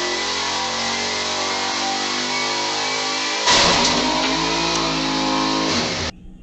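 Vehicle engine drone heard from inside a car on a dashcam. About three and a half seconds in, a sudden loud harsh noise joins it for over two seconds, and then the sound cuts off abruptly shortly before the end.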